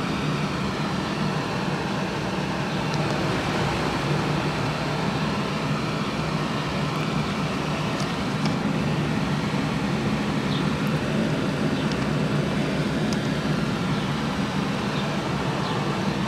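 Air-conditioning fan running steadily: a low hum under an even rush of air, with a few faint ticks.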